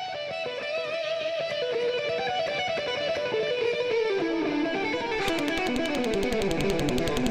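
Electric guitar music playing fast runs of notes that fall in pitch. About five seconds in, a rapid, even stream of sharp hits joins in.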